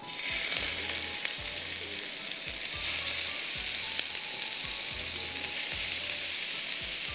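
Marinated undercut boti pieces sizzling as they shallow-fry in a few tablespoons of hot oil. The sizzle starts suddenly and then holds steady.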